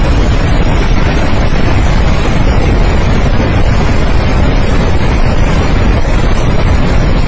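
Loud, steady rush of a flooded mountain river in spate, with wind buffeting the microphone.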